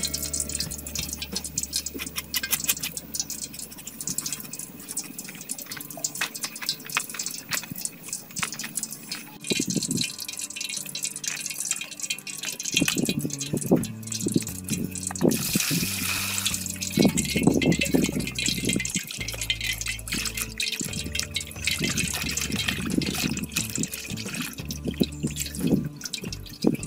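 Water splashing and dripping as pieces of raw chicken are washed by hand in a metal bowl of water, over steady background music.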